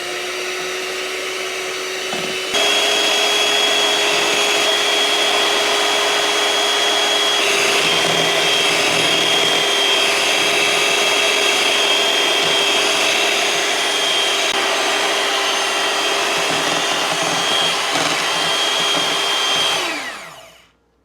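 Electric mixer whipping heavy cream: the motor whines steadily, steps up to a higher speed and louder about two and a half seconds in, then winds down near the end.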